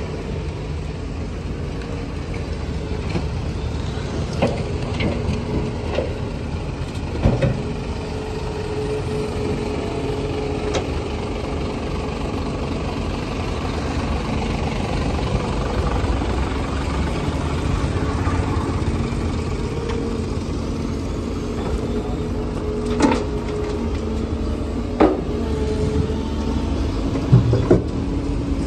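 Heavy vehicle engines running steadily, with a few short sharp knocks near the end.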